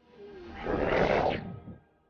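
Cartoon sound effects: a brief falling tone, then a loud noisy rush that swells about half a second in and fades by a second and a half.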